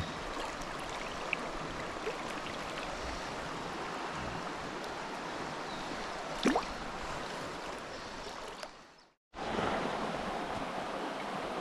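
Fast mountain river water rushing steadily. About six and a half seconds in there is a short rising tone. Near nine seconds the sound fades to silence for a moment, then the rushing returns a little louder.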